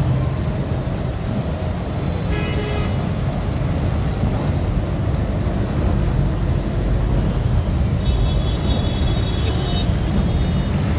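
A vehicle running through deep floodwater: a steady low engine and road rumble with water noise. A higher pitched sound cuts in briefly about two seconds in and again for a couple of seconds from about eight seconds in.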